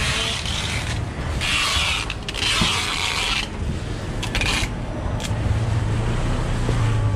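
A few rasping scrapes of packing tape and cardboard boxes being handled as air purifier boxes are taped up, two longer ones in the first half and a short one after. A vehicle engine's low hum comes in about five seconds in.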